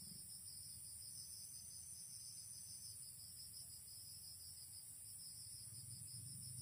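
A steady, high-pitched chorus of insects chirping, cricket-like, in a fast even pulse, over a faint low rumble.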